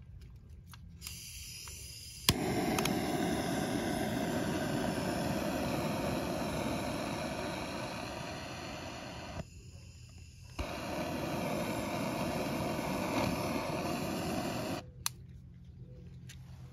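Double-barrel butane jet torch lit with a click of its automatic ignition, burning with a steady hiss for about seven seconds before shutting off. It is relit about a second later and burns for about four more seconds, with another click as it is shut off.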